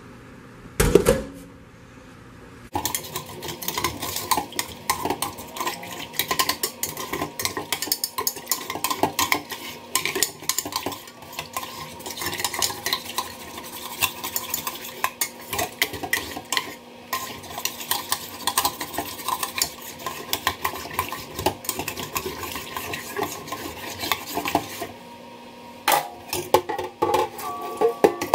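A metal spoon scraping and stirring inside a stainless steel Instant Pot inner pot, loosening burned-on food soaked in water. The rapid scraping clatter starts about three seconds in, after a single clunk, and runs until near the end, where a few separate clinks follow.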